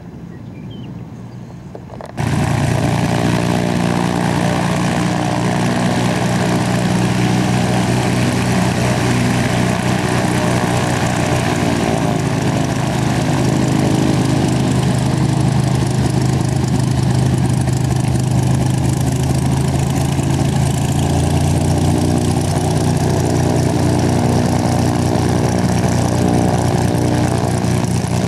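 Light aircraft's piston engine running steadily and close, starting abruptly about two seconds in, its pitch dipping slightly about halfway through.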